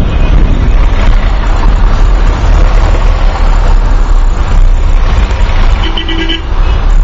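Dense city traffic heard from inside a moving car: steady engine and road rumble, with a car horn honking a few short times about six seconds in.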